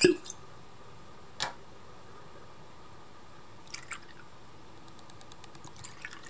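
Whisky poured from a glass bottle into small ceramic cups: a short hollow pop right at the start as the cork comes out, a single knock about a second and a half in, then a brief splashing pour just before the four-second mark and a run of fine drips near the end.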